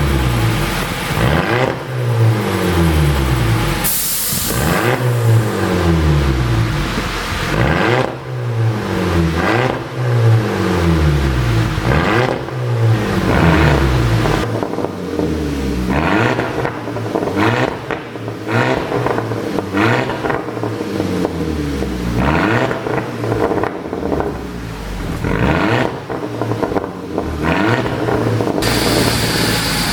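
2015 Volkswagen CC's 2.0 TSI turbocharged four-cylinder engine revved over and over, each rev climbing and falling back about every two seconds, with pops and crackles from the exhaust as the revs drop, the sign of a pop-and-crackle tune.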